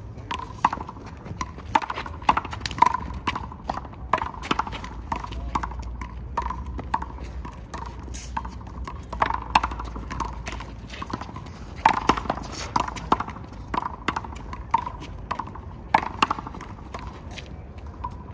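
Handball rally: a small rubber ball slapped by open hands and smacking off the wall and the ground, an irregular run of sharp smacks several times a second, a few of them louder.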